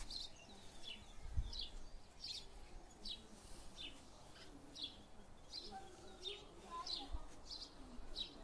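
Small birds chirping steadily, short high notes that drop in pitch, about two a second, with a couple of faint low bumps.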